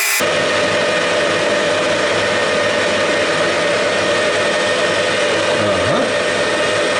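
Lathe running steadily with a hardwood workpiece turning in it, a continuous motor hum with a steady tone.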